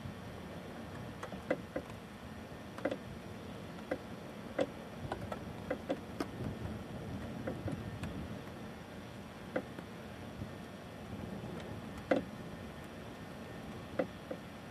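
Wildfire burning through black spruce forest: irregular sharp pops and crackles over a low steady rumble.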